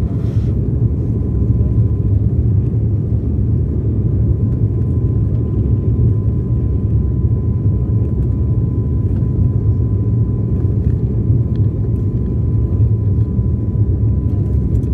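Steady, loud low rumble of an airliner cabin in flight, with a faint steady whine above it.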